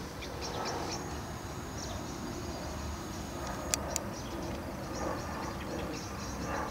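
Steady low rumble of a low-flying aircraft overhead, with birds chirping in short high notes and a thin high insect whine. Two sharp clicks come a little past the middle.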